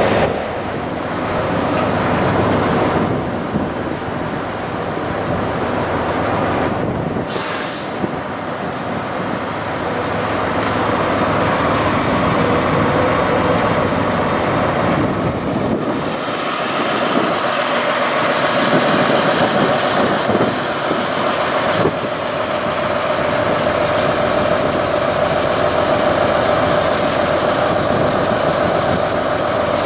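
Diesel semi-truck engines idling: a steady loud drone with a constant whine running through it. There is a short burst of air hiss about seven seconds in.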